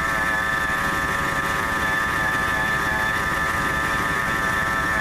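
1997 Ford F-150's engine idling with a steady whine from its accessory belt drive. The owner takes it for the bearing going bad on the idler pulley, which reads hottest of all the pulleys.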